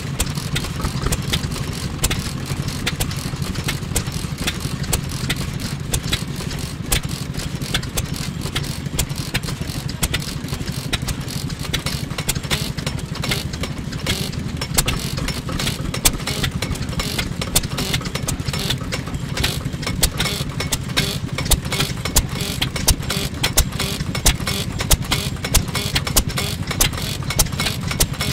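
FIRST Type S.H 3 hp kerosene stationary engine running steadily, a constant low hum with sharp clicks from its firing and valve gear.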